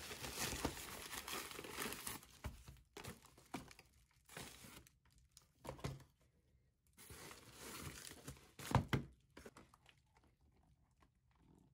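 Plastic poly mailer bag crinkling and tearing as it is handled and opened, with dense rustling at first and again later, and boxes being set down on a desk. A louder knock comes about nine seconds in.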